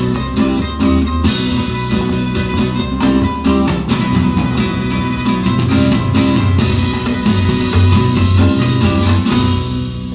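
Recorded music with guitar and drums played through Dali Ikon 5 mk2 loudspeakers, fading out near the end.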